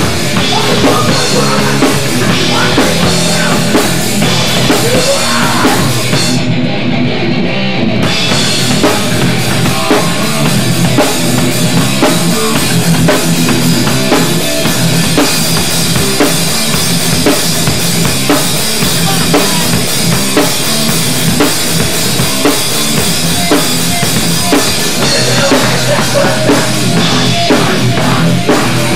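Loud hardcore rock band playing: distorted guitar, bass and a pounding drum kit. The guitar and cymbals drop out for a moment about six seconds in, then the full band comes back in.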